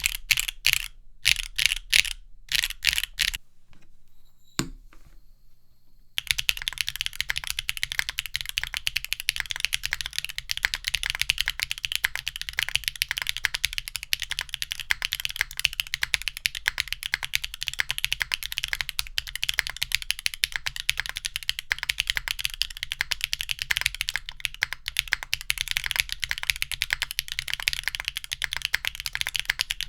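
Typing on a Neo70 mechanical keyboard with BSUN Udon switches (55 g long springs, long-pole stems), with a deep clack on each keystroke. A few separate key presses come first, then a short pause with a single click, then steady fast typing from about six seconds in.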